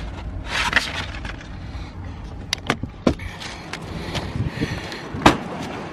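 Sheets of sandpaper rustling as they are leafed through, followed by several sharp clicks and knocks of things handled in a car trunk, the loudest a little past five seconds in.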